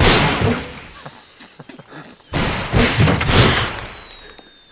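Air hissing out of a car tyre that rats have chewed through, in two loud bursts about two seconds apart, each fading over a second or so.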